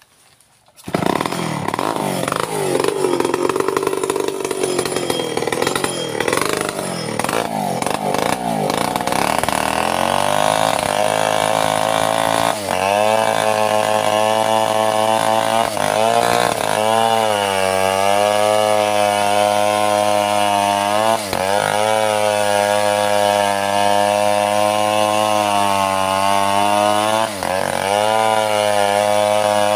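Stihl two-stroke chainsaw comes on suddenly about a second in and works into a mahogany log, its engine note wavering under load. It then settles to a steady high running note, dipping briefly several times.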